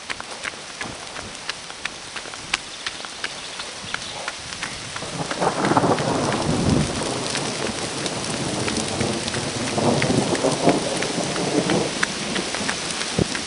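Rain falling with rolling thunder: a steady hiss of rain dotted with sharp ticks of drops, and two long rumbles of thunder swelling up about five and ten seconds in.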